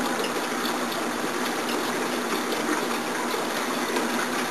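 Steady rush of water circulating in a saltwater reef aquarium.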